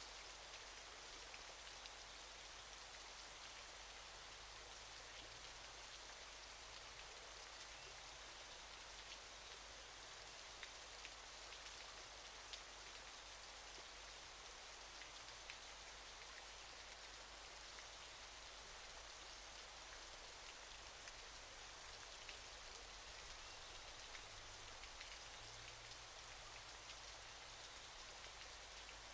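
Faint, steady rush of falling water from a waterfall: an even hiss that never changes, with small scattered spatters.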